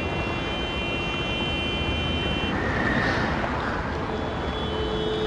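Steady city street traffic noise with long held car horn blasts: one sounding until about two and a half seconds in, and another starting about four seconds in.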